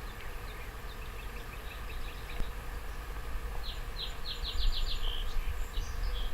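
A small bird singing: runs of quick, high chirps, with a faster trill about four seconds in, over a steady low rumble.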